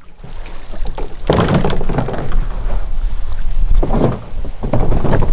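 Royalex canoe hull dragged out of the water up a rocky shore and turned over, scraping and thudding against the rocks and ground in three loud spells: about a second in, near four seconds, and near the end.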